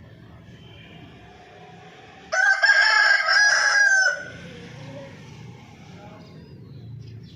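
A rooster crows once, loud and almost two seconds long, starting about two seconds in, over a low steady background rumble.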